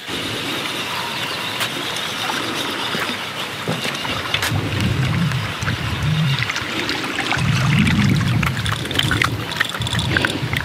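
Wind buffeting the microphone in gusts, heaviest about halfway through and again around eight seconds in, over a spinning reel being cranked to wind in a hooked fish, with scattered light clicks.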